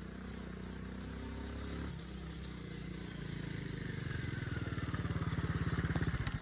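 Small motorcycle engine, likely a Honda mini dirt bike, running steadily at first. From about two seconds in, it settles to a slower, distinct putt-putt that gets louder toward the end.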